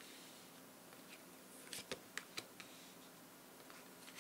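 Near silence broken by a few faint, light clicks and taps from tarot cards being handled, clustered about two seconds in.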